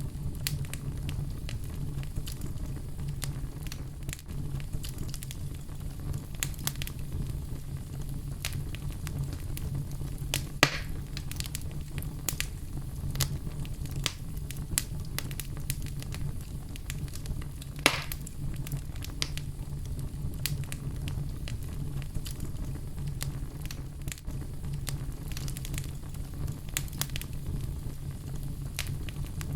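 Wood fire in a fireplace crackling: irregular sharp pops and ticks, with two louder pops about a third and about three-fifths of the way through, over a steady low rumble.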